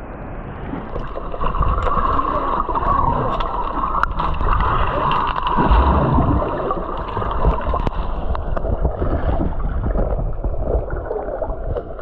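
Water heard from underwater: a muffled, continuous rush and gurgle of moving water and bubbles, with crackling and a low thump about midway as a swimmer's arm churns the water beside the microphone.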